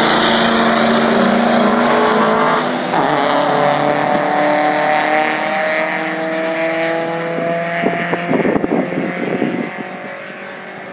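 Drag-racing car accelerating hard down the strip, its engine note breaking at a gear change, then climbing steadily before fading into the distance. A few irregular knocks come about eight seconds in.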